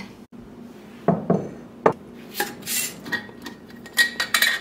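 Kitchen work sounds: scattered light knocks, clinks and brief rubbing of dishes and utensils on wooden counters, with a quick run of clicks near the end.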